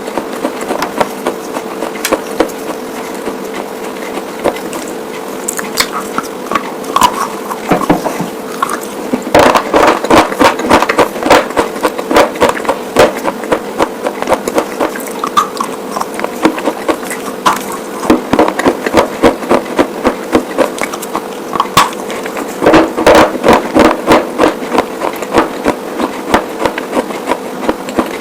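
White slate pieces being bitten and chewed close to the microphone: rapid, sharp crunching and cracking, with denser bursts about a third of the way in and again near the end. A steady faint hum runs underneath.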